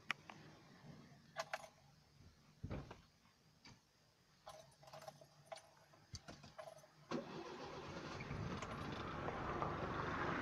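Keys jingling and clicking at the ignition of a Fiat 128. About seven seconds in, its four-cylinder engine starts and keeps running, heard from inside the cabin through the rebuilt exhaust.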